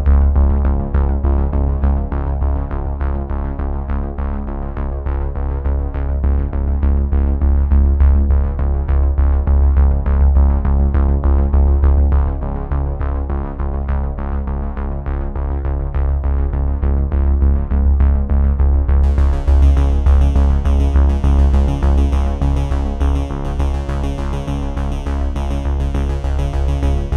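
Background music: an electronic synthesizer track with heavy bass and a steady beat, growing brighter in the treble about two-thirds of the way through.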